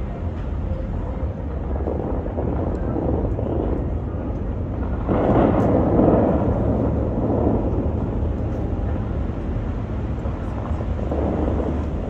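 Steady outdoor rumble of wind and distant city traffic heard from high above the street, with a louder rushing swell about five seconds in.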